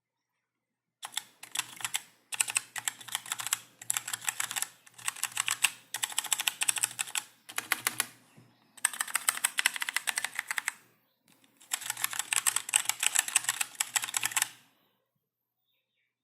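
Fast typing on a hundeRobot K70 mechanical keyboard with brown tactile switches: rapid keystroke clatter in several bursts with short pauses, starting about a second in and stopping shortly before the end.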